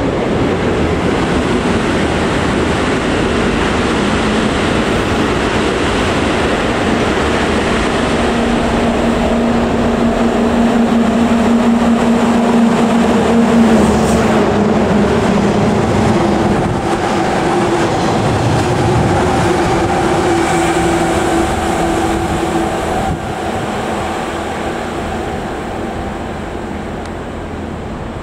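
A JNR DD51 diesel locomotive running through the station at speed, hauling a Kumoya 145 and unpowered 413-series cars. Its engine drone and the wheels on the rails rise to a peak about halfway through as the locomotive passes. The sound then fades slowly as the cars roll by, with steady humming tones under the rail noise.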